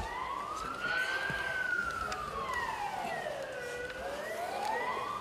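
Emergency-vehicle siren wailing slowly: a single tone rising, falling and rising again, with one full sweep taking about four to five seconds.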